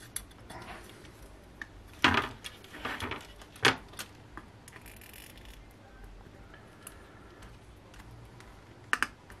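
A few small clicks and knocks of tools and components being handled on a workbench during circuit-board soldering: one about two seconds in, a short cluster a second or so later, and a quick double click near the end.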